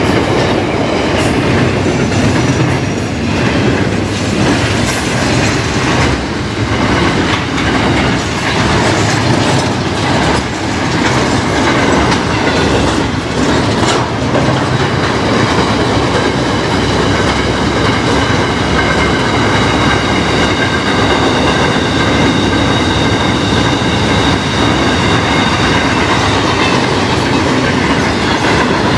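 Freight train wagons rolling across a rail bridge, with a steady rumble and clatter of wheels over the rail joints. From about halfway a steady high ringing squeal from the wheels joins in.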